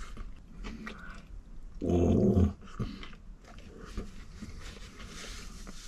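A man chewing a burrito with soft mouth noises, and about two seconds in a short, low throaty vocal sound, like a grunt of pleasure or a burp.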